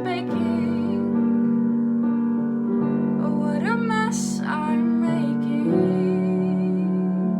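Piano accompaniment playing held chords that change a few times, with a brief wordless sung note with vibrato about halfway through.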